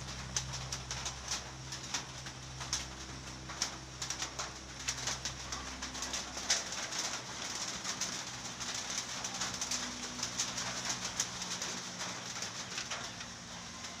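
Hill myna making soft, low cooing sounds, with many small clicks scattered throughout.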